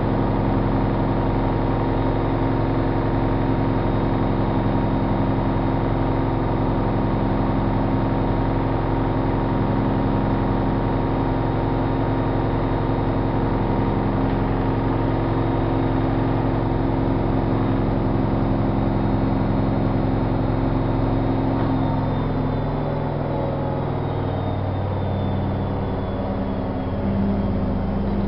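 Privileg Single 42614 washing machine spinning at high speed: a steady motor and drum whine with a slow pulse about every two seconds. About 22 seconds in, the pitch falls as the spin winds down.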